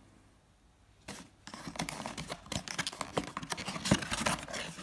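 About a second of near silence, then a cardboard box and its cardboard insert being handled: rustling and scraping with many small clicks.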